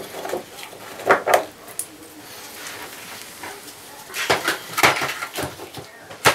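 Metal clinks and knocks of tools and faucet parts being handled at a bathtub faucet valve, in scattered clusters about a second in and again from about four seconds in, with a sharp knock near the end.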